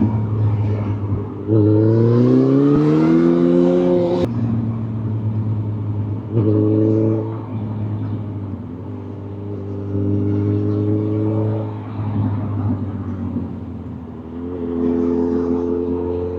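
Motorcycle engine running under way, the revs rising steeply once, with a sharp click about four seconds in as it shifts gear, then pulling again in shorter surges over a steady low drone.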